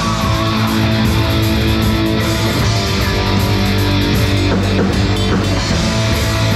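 Rock band playing live on stage: guitars and a drum kit, loud and steady.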